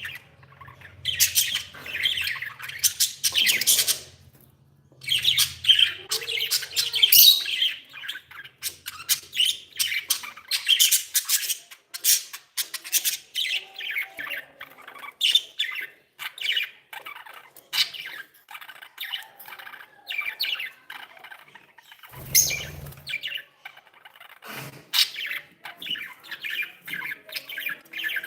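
Budgerigars chattering: a rapid, continuous run of short high chirps and squawks, with a brief pause about four seconds in and one low thump about twenty-two seconds in.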